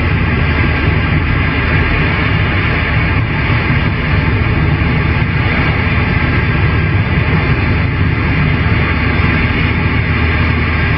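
Steady hiss of static from a Superstar 3900EL CB radio's speaker on an open 27 MHz channel, with nobody transmitting.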